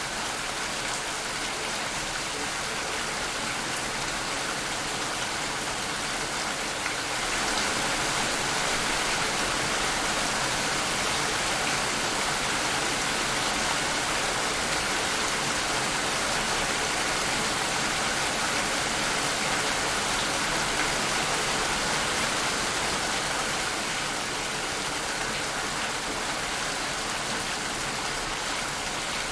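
Steady, dense rainfall, swelling slightly louder a few seconds in and easing back near the end.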